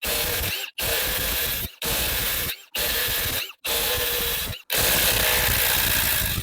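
Impact wrench hammering in a series of short bursts, about seven, the last the longest, as it undoes the bolts of a 3SGE Beams flywheel held still by a flywheel lock.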